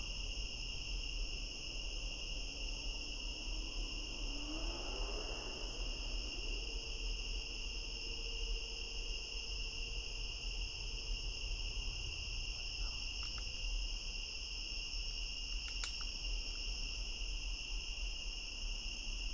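Night chorus of crickets and other insects: a steady, high-pitched trilling in several layers. A faint low hum rises in pitch about four seconds in and holds steady until about eleven seconds, and a few faint clicks come later on.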